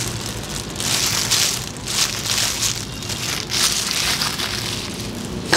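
Rustling and crinkling from a thin plastic glove and a comb working wet, perm-lotion-soaked hair onto a perm rod, in several irregular swishes.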